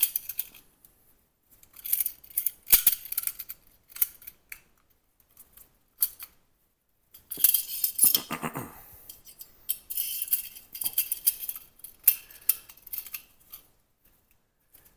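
Pistol magazine spring and small magazine parts being fitted and pushed into the magazine body, making several short bursts of light metallic clicks and rattles, with a longer scraping rattle about halfway through.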